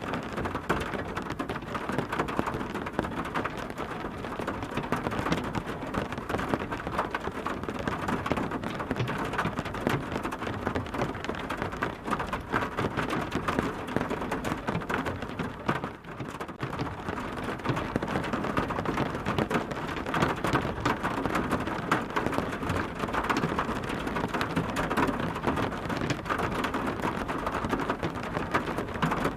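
Heavy rain falling steadily, a dense patter of drops on a surface, with a brief lull about halfway through.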